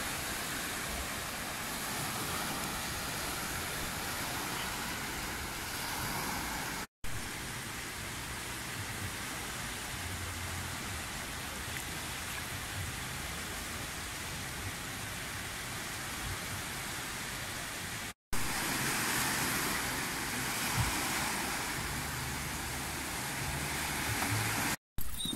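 Small waves washing onto a sandy beach, with wind buffeting the microphone: a steady wash of noise that shifts a little in level three times.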